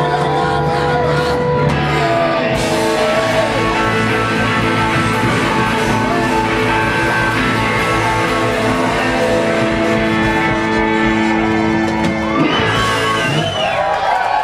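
Rock band playing live, electric guitars and drums ringing out on long held chords at the end of a song. Near the end the band stops and the crowd shouts and cheers.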